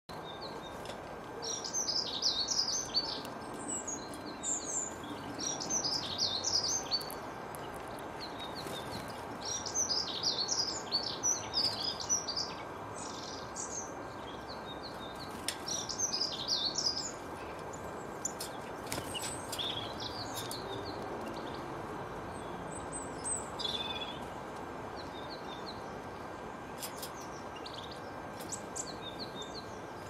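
Small songbirds singing in short, quick twittering phrases that come thick and fast for the first half, then more sparsely, over a steady background hiss.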